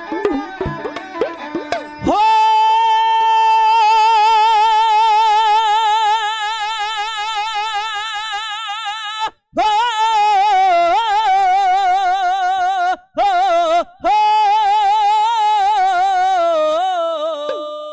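Dhadi ballad music: after a moment of sarangi and dhad drum, a singer holds long, high notes with a wide vibrato. The voice breaks off briefly twice and slides down in pitch near the end.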